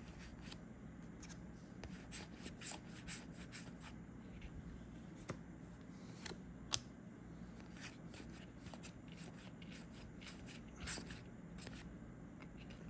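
Star Wars Unlimited trading cards handled and flipped through by hand: soft, scattered card slides and snaps, with a sharper click about seven seconds in.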